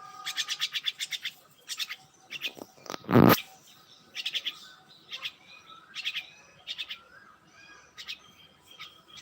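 Small birds chirping in quick runs of short, high notes, repeated every second or so. About three seconds in there is a brief loud bump.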